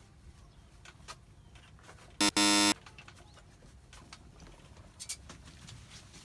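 A brief loud buzzing beep about two seconds in: a quick blip, then a flat tone lasting about half a second. Faint scattered clicks and ticks sound around it.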